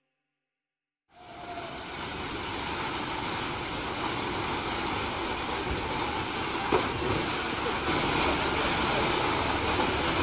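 Steady rushing water at a water park, fading in about a second in after a moment of silence.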